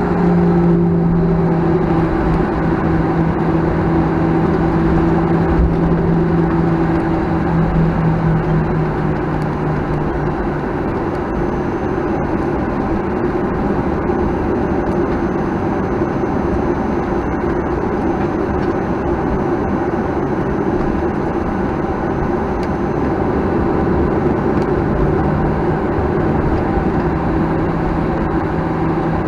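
Cabin noise of a Boeing 737-900ER with its CFM56-7B engines running at low thrust during taxi: a steady hum over rumble. The engine tone drops slightly about eight to ten seconds in and rises again a few seconds before the end.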